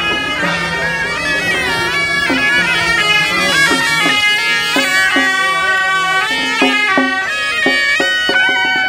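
Suona, the Chinese double-reed shawm, playing a loud melody of held notes with slides between them.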